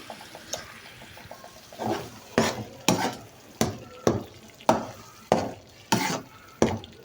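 A spoon stirring palak saag in a cooking pot, scraping round the pan in regular strokes a little under two a second, starting about two seconds in, over a faint sizzle.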